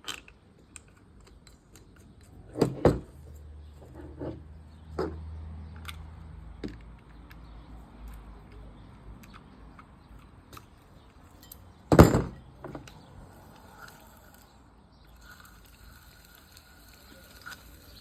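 Scattered clicks and knocks of objects being handled, with a louder thump about three seconds in and a sharper, louder one about twelve seconds in, and a low hum for a couple of seconds in between.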